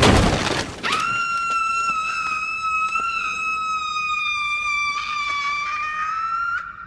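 A loud crash, then a man's long, very high-pitched scream held at one pitch for about six seconds, rising a little just before it cuts off.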